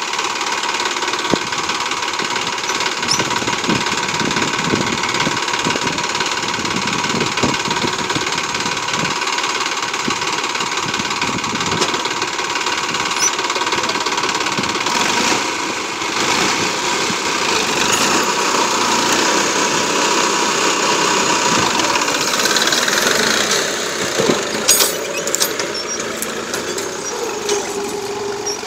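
Massey Ferguson 9500 tractor's diesel engine running steadily under load while pulling a two-disc plough through the soil.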